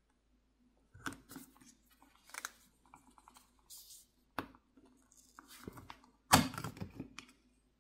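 Plastic pry pick and suction cup working at the edge of a phone's glass back plate: a string of small clicks and scrapes as the heat-softened adhesive is pried apart, with one louder, longer scrape about six seconds in.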